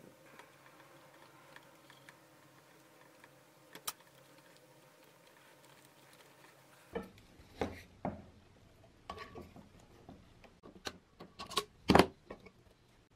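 Handling sounds on a workbench as a lamp's cord wires are stripped and fitted to its metal shade: a faint steady hum with a single click at first, then scattered sharp clicks, taps and knocks of the knife, wires and metal shade, the loudest knock near the end.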